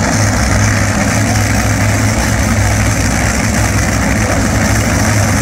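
Two Top Fuel dragsters' supercharged nitromethane Hemi V8s idling together at the starting line while staging for a run, a loud, steady, deep rumble.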